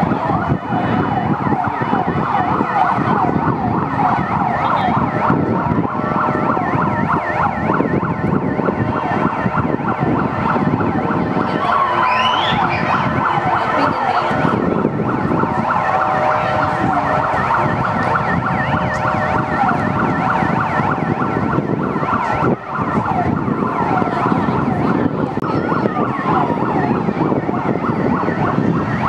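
Several police sirens from a convoy of patrol cars and motorcycles sounding at once, their fast rising-and-falling yelps overlapping without a break over the rumble of traffic.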